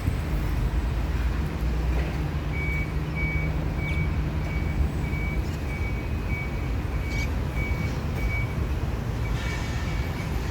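Toyota 7FBE18 electric forklift running with a steady low rumble, its warning alarm starting a few seconds in and giving short high beeps at an even pace.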